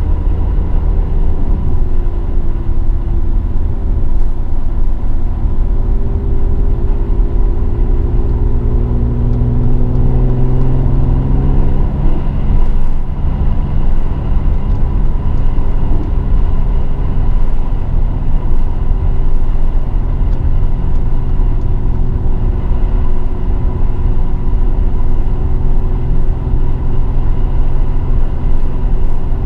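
Mercedes-AMG GLE 43's twin-turbo V6 under way over heavy road rumble, its pitch rising steadily for about ten seconds as the car accelerates, then settling into a steady run.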